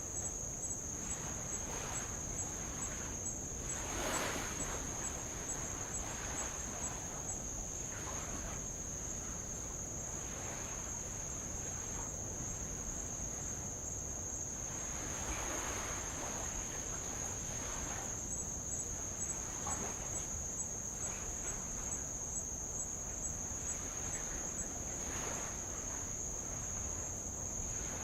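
A steady, high-pitched chorus of insects. Soft splashes of small waves lapping on old lava rock come every few seconds.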